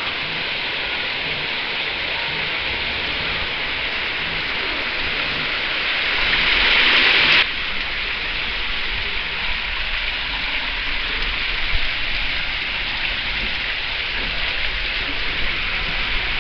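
Water rushing through an enclosed tube water slide, a steady rain-like hiss. It swells louder about six seconds in and drops back abruptly about a second and a half later.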